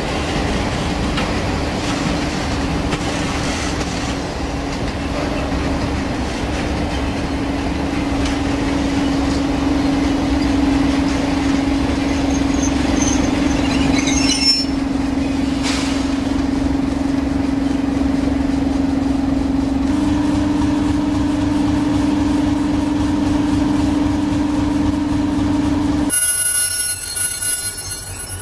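Class 37 diesel locomotive's English Electric V12 engine running with a steady deep drone, its note shifting slightly about two-thirds of the way through, with a brief squeal of wheels on rail about halfway. Near the end it cuts to a quieter high steady whine from an electric locomotive.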